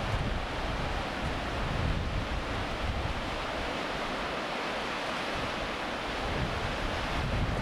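Sea waves washing steadily at a harbour shore, with wind buffeting the microphone in gusts that ease in the middle and pick up again near the end.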